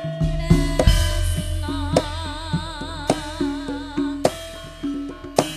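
Javanese gamelan music for tayub dancing: regular hand-drum strokes and ringing bronze metallophone notes over a deep gong boom that swells in just after the start and lingers. A wavering, vibrato melody line rises above it in the middle.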